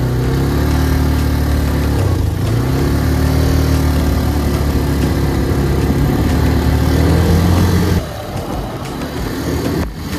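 ATV engine running as the quad is ridden, its pitch rising and falling with the throttle. About eight seconds in the engine sound drops away and gusty wind blowing on the microphone takes over.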